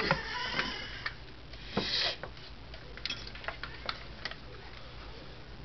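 Scattered light clicks and knocks of cables and equipment being handled behind a TV, with a short scraping rustle about two seconds in, over a low steady hum.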